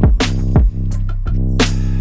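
Electronic background music with heavy sustained bass and sharp drum hits about every half second, some of the hits sweeping down in pitch.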